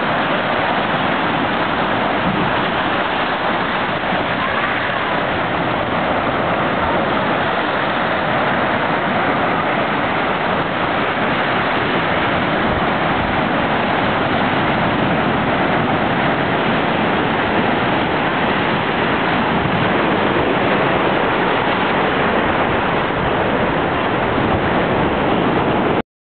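Ocean surf washing in over a rocky beach: a steady rush of breaking waves that cuts off abruptly at the very end.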